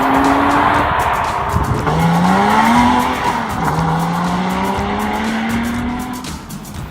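Porsche Cayman R's flat-six through a Carnewal aftermarket exhaust, accelerating hard: the engine pitch climbs, drops at upshifts about two and four seconds in, climbs again, then fades near the end.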